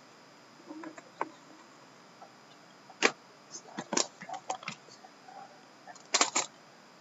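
Cardboard Panini Prime hockey card boxes being handled and opened with a small tool. There is a scatter of short taps, clicks and crinkles: one sharp click about three seconds in, a run of small ticks just after, and a quick cluster of clicks near the end.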